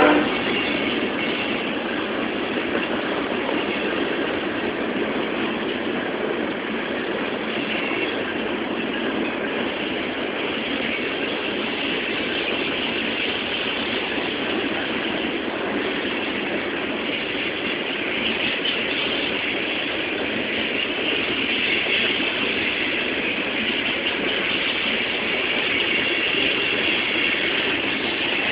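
Coal hopper cars of a unit coal train rolling past, a steady rumble and rattle of steel wheels on rail that grows a little louder about two-thirds of the way through.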